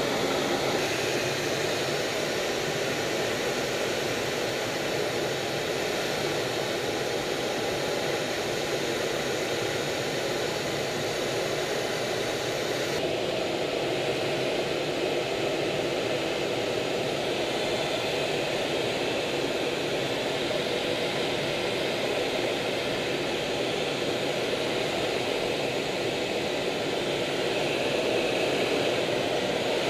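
Steady roar of aircraft engines and rushing air, heard from inside an aircraft in flight. About 13 seconds in the sound steps slightly duller as its top hiss drops away.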